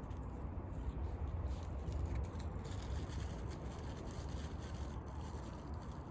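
Campfire burning, with faint irregular crackles over a steady low rumble.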